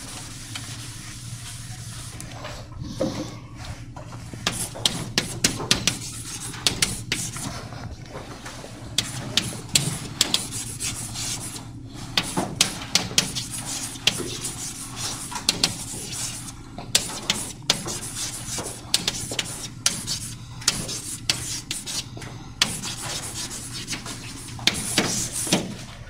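A blackboard eraser rubbing on the board, then chalk writing on a blackboard: scratchy strokes broken by many sharp, irregular taps.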